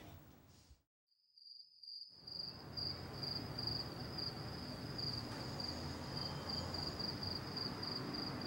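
Rock music fades out in the first second. Then a cricket starts chirping in a steady, evenly pulsing high trill over a low hum of night ambience.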